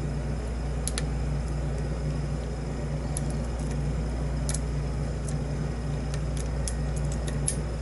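Faint metallic clicks of a lock pick and tension wrench working the pins of a padlock held in a deep false set, scattered irregularly and bunching up near the end, over a steady low hum.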